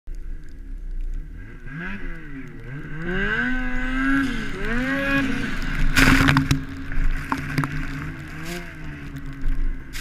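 Ski-Doo 850 turbo snowmobile's two-stroke engine, fitted with a Jaws can exhaust, revving up and down repeatedly under hard load in deep, heavy snow, with a steady high whine above it. About six seconds in comes a short, loud rushing burst.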